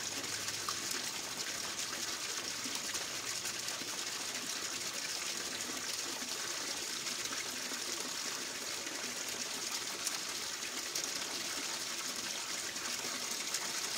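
Pump-fed sluice box running: water rushing over the mats and pouring off the end into a tub of water, a steady splashing flow.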